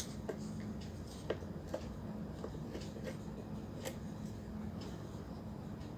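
Scattered small clicks and taps of a screwdriver working at a stubborn screw in an electric kettle, over a faint steady low hum.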